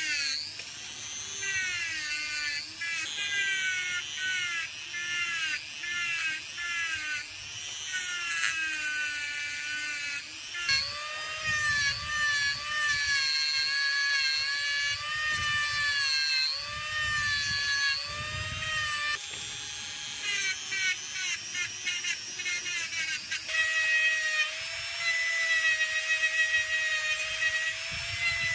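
Handheld rotary tool whining at high speed while its spinning bit is worked against a cordless drill's motor armature and parts to clean them. Its pitch repeatedly dips and recovers under load, then settles steadier and louder near the end.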